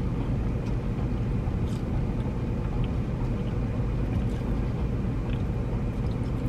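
Steady low hum of a car idling, heard from inside the cabin, with a few faint crunches of French fries being chewed.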